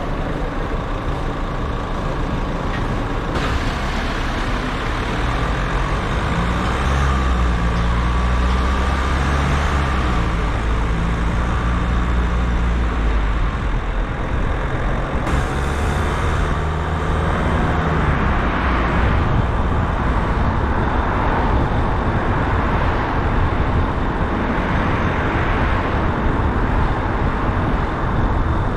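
City driving: steady road and traffic noise with a low engine note that rises and falls in steps for several seconds in the middle, as the car picks up speed.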